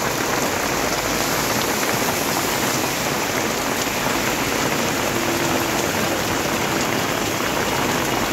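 Heavy rain pouring steadily onto a wet road and roadside: a dense, even hiss of a downpour.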